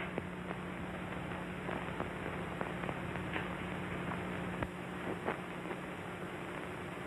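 Surface noise of an early-1930s optical film soundtrack: a steady hiss with a low hum and scattered faint crackles.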